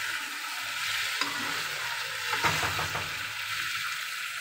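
Jackfruit pieces sizzling steadily in hot oil and onion-tomato masala in a kadhai, with a spatula stirring and scraping against the pan a few times, about a second in and again midway.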